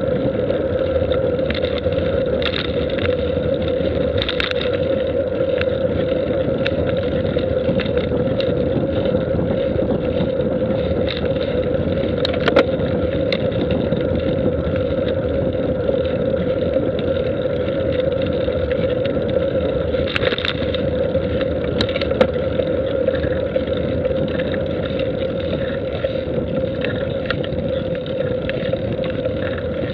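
Steady travel noise from a camera moving along a paved road: a constant hum under wind and road rumble, with a few small ticks and knocks, the sharpest about twelve seconds in and again near twenty-two seconds.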